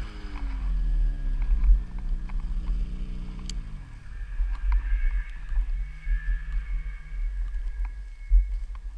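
Snowmobile engine with its revs falling steadily over the first four seconds as the sled slows and stops in deep powder, then a low steady idle. Heavy wind buffeting on the helmet-mounted microphone throughout.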